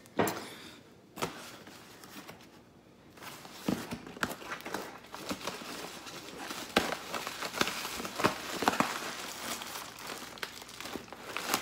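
Packing material in a cardboard shipping box being handled: a few knocks at first, then from about three and a half seconds in a steady crackly crinkling and rustling of shredded paper and bubble wrap being pulled out.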